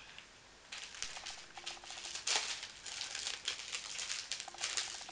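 Small plastic jewellery packaging rustling and crinkling as fingers handle earrings on their card. It comes as a run of quick crackles that starts about half a second in and is loudest about two seconds in.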